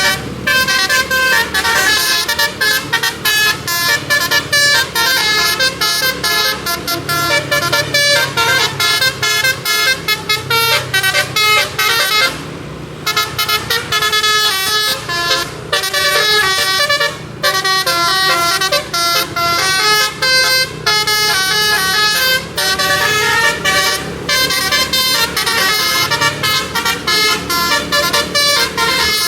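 Tour bus's telolet basuri, a multi-trumpet musical air horn, playing a quick melody of rapidly changing notes, with a pause of about a second near the middle.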